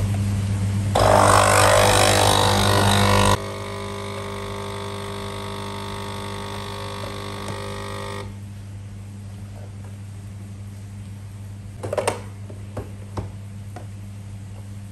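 Capsule espresso machine's pump buzzing as it brews an espresso shot into a glass of milk. It is loud and rough for about two seconds, then settles into a steadier hum that cuts off about eight seconds in. A few light glass clinks follow near the end.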